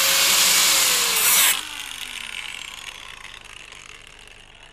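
Angle grinder running with a loud grinding hiss, switched off about a second and a half in, its motor then whining down as it slows.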